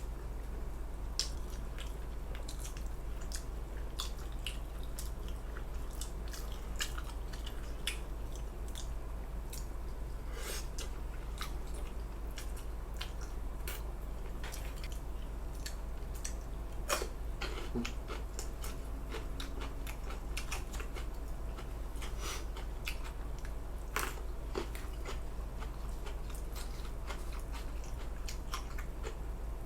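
A person eating samgyetang close to the microphone: chewing and biting, with many scattered sharp clicks. A steady low hum runs underneath.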